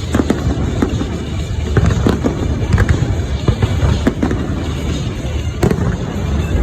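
Fireworks going off: a dense run of sharp bangs and crackles, several a second, over a continuous low rumble of explosions.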